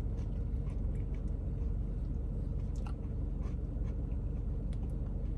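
Steady low rumble with faint scattered small clicks and ticks, as a spoonful of frozen custard is taken and eaten.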